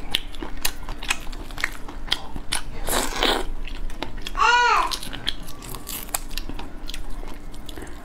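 Close-up chewing and biting of a cooked prawn, with small crackles and clicks of its shell being peeled and bitten throughout. About four and a half seconds in, a brief hum rises and falls in pitch.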